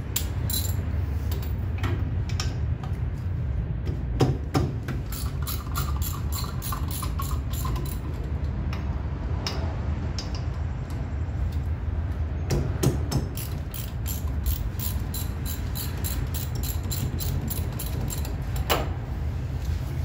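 Socket ratchet clicking in long runs as the front brake caliper's mounting bolts are wound out, with a few heavier metallic knocks.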